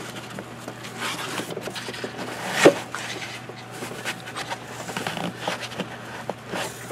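Rubber hose being pushed and routed by hand among engine-bay plastics: irregular rubbing and scraping, with one sharp knock about two and a half seconds in.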